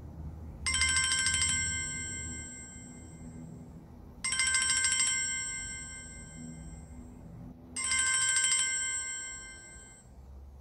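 Smartphone countdown timer's time's-up alarm going off, signalling that the timer has run out. Each burst is a quick run of repeated bright notes followed by a ringing tone that fades, and the chime sounds three times, about three and a half seconds apart.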